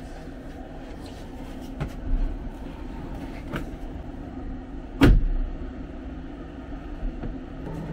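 Rear door of a Tesla Model S shut with a single solid thunk about five seconds in, after a couple of faint clicks, over a steady low hum.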